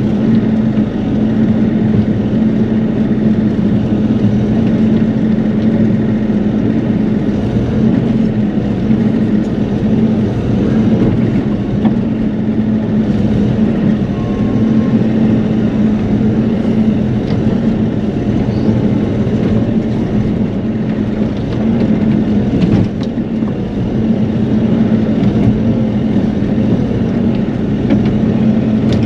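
Bobcat E42 mini excavator's diesel engine running steadily at a constant pitch while the arm is worked, heard from inside the closed cab.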